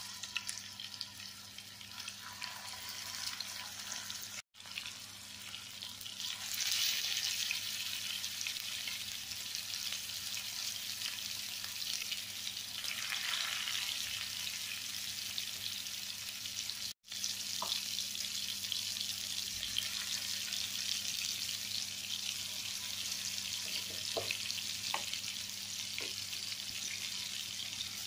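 Marinated fish pieces sizzling in hot coconut oil as they are laid into the pan. The frying grows louder a few seconds in as more pieces go in, with a few light clicks near the end.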